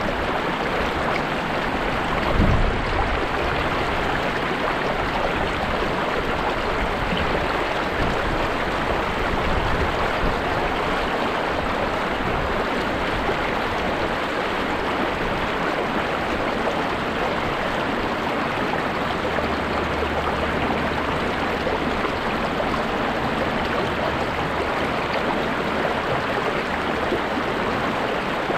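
River water flowing and rushing steadily over stones. There is a brief low thump about two and a half seconds in.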